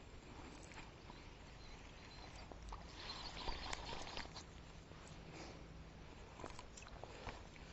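Faint, irregular clicks and rustling from handling a fishing rod and reel while a cast is retrieved.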